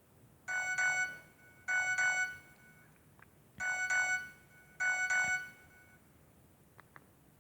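Nokia 105 (RM-908) ringtone playing from the phone's speaker: four short bursts of quick electronic notes in two pairs, then it stops.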